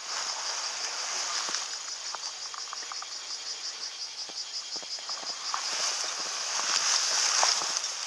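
A steady, high-pitched insect chorus with a fine rapid pulse, swelling a little near the end, over soft rustling and scattered light clicks from grass and undergrowth brushing past a person on foot.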